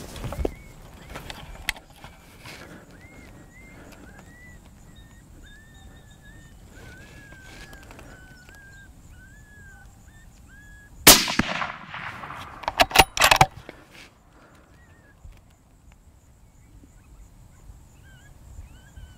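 A suppressed rifle fires one loud, sharp shot about eleven seconds in, followed about two seconds later by a quick cluster of sharp, loud sounds. Before the shot, a faint series of short, high chirping notes repeats.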